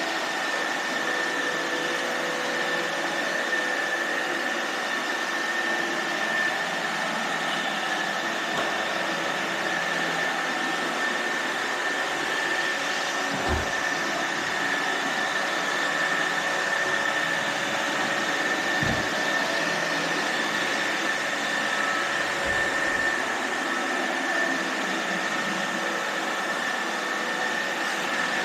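iRobot Roomba robot vacuums running: a steady whir of suction and brush motors with a constant high whine, and a few brief low bumps partway through.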